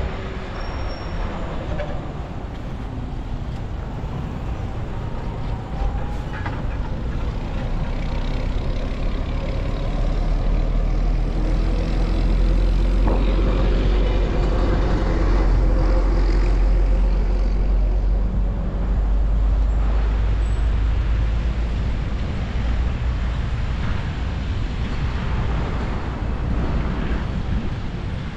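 Road traffic noise, a steady vehicle rumble that grows heavier through the middle and eases off again.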